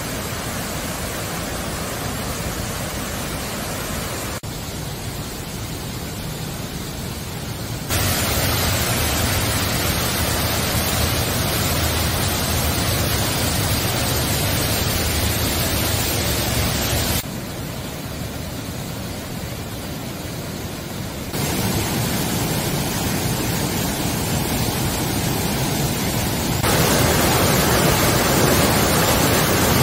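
Mountain stream rushing over rocks and small cascades: a steady rush of water that jumps abruptly louder or quieter several times, about 4, 8, 17, 21 and 27 seconds in.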